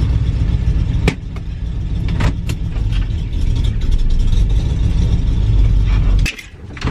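1964½ Ford Mustang's engine running steadily as the car is manoeuvred at low speed, heard from inside the cabin, with a few sharp clicks. The engine sound cuts off about six seconds in.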